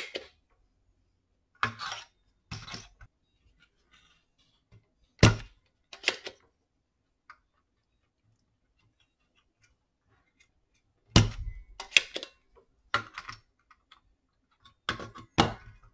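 Scattered sharp clicks and knocks from hand tools and the circuit board on a workbench during desoldering. The loudest click comes about five seconds in, and a quick run of clicks follows near the end.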